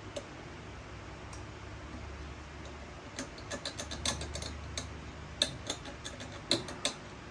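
Irregular sharp clicks and light taps from small parts or tools being handled during a string-trimmer repair, a few at first, then a quick cluster in the second half, over a low steady hum.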